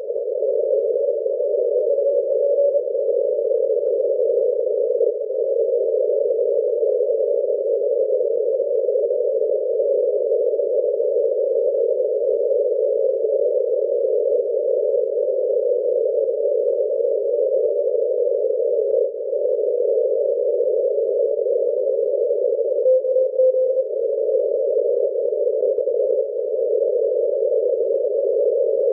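Shortwave receiver in CW mode on the 40-metre amateur band: steady hiss squeezed through a narrow Morse filter, with a brief Morse tone coming through twice.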